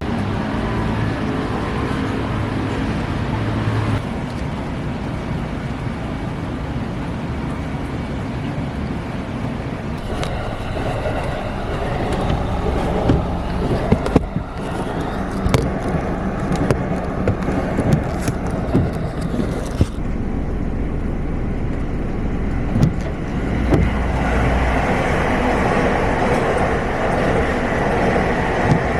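Road traffic noise: vehicles running past in a steady stream, with scattered short clicks and knocks.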